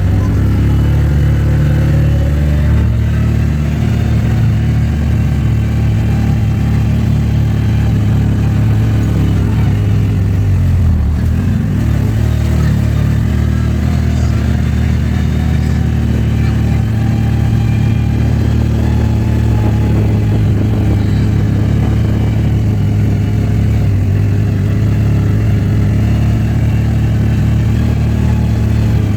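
A vehicle engine running steadily. Its pitch drops and picks up again about ten seconds in.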